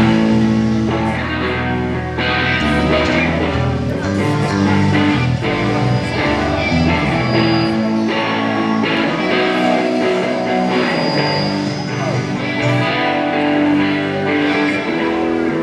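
Live rock band playing through the PA during a sound check, led by amplified guitar with sustained notes. A deep bass line under it drops out about halfway through.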